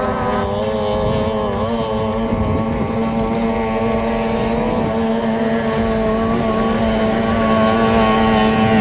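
Racing powerboat outboard engine running at high revs, a steady high-pitched drone that holds one pitch and gets a little louder near the end.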